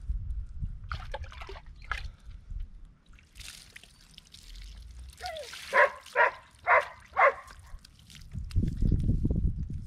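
A dog barks four times in quick succession, about half a second apart, with a few fainter barks earlier. Near the end, water pours and splashes.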